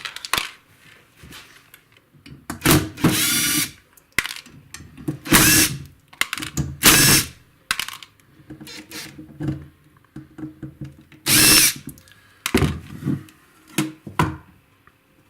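Power drill with a Phillips bit backing out small machine screws in short bursts of motor whine, about six of them, with quieter clicks and handling noise in between.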